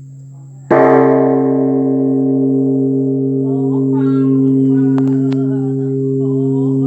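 Vietnamese Buddhist temple bell struck once, about a second in, ringing on with a long, steady sustain over the low hum of the previous stroke. A voice begins chanting over the ringing about three and a half seconds in.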